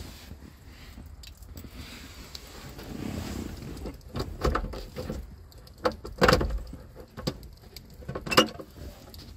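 Handling noise: rustling with a handful of sharp clicks and knocks, the loudest about six seconds in.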